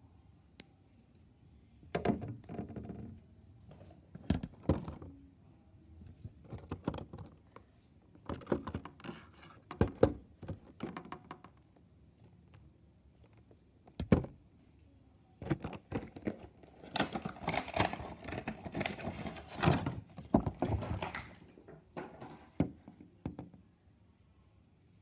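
Hands handling Funko Pop vinyl figures, their cardboard window boxes and clear plastic protectors: irregular knocks, taps and rustling, with a longer stretch of rustling about two-thirds of the way through.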